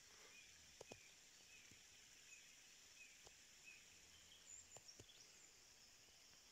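Near silence in a snowy forest: a distant bird's faint short high calls, repeated every half second or so, with a few soft clicks.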